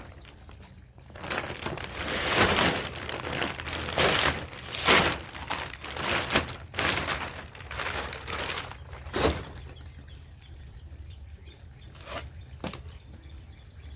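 Brown cardboard packing in a shipping box being handled and pulled about, a run of scraping, rustling noises for about eight seconds, then quieter with a couple of faint knocks near the end.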